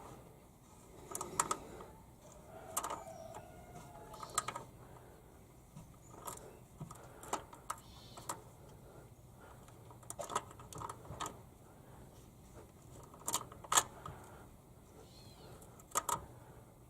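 Pliers clicking against an oil pressure switch as it is turned and tightened by hand. The clicks come at irregular intervals, with a couple of louder ones near the end.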